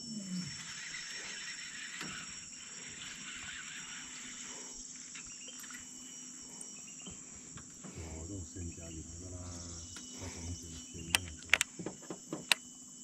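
Steady high-pitched chorus of insects buzzing, with a few sharp clicks or knocks near the end.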